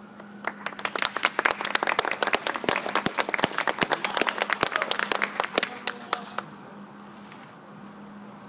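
Audience applauding: a dense patter of handclaps that starts about half a second in and dies away about six seconds in.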